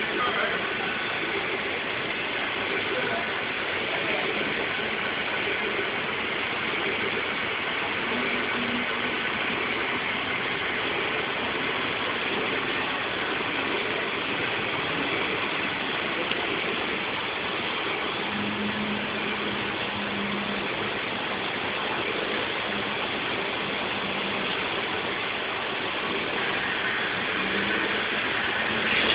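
Model train running along the track: a steady running noise of its wheels on the rails and its geared motor.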